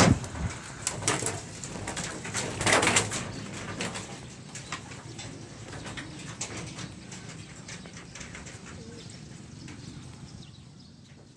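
Pigeons cooing, with a few sharp knocks and rattles and a louder rustling burst about three seconds in; the sounds fade after about four seconds.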